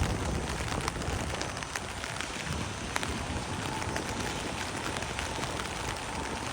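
Steady rain falling, with many single drops ticking sharply close by and one sharper tick about three seconds in.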